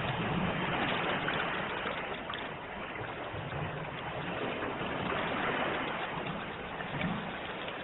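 Sea surf: a steady wash of waves, with gentle swells in loudness.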